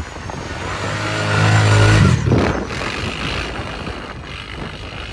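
Kawasaki Brute Force ATV engine revving as the quad ploughs through deep snow, building to its loudest at about two seconds as it passes close by, then dropping away quickly.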